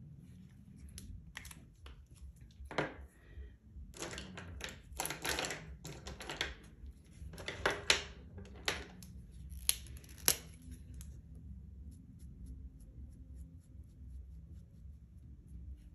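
Felt-tip textile markers being handled: a run of sharp clicks and rustles as the pens are put down, picked up and uncapped. Near the end comes faint light scratching of a marker colouring on fabric.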